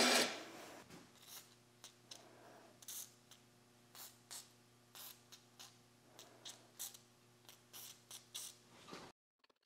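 Aerosol can of penetrating oil sprayed in about a dozen short, sharp bursts onto a rear axle's brake drum and wheel studs, over a steady low hum. There is a brief clatter at the start as the hanging axle is handled.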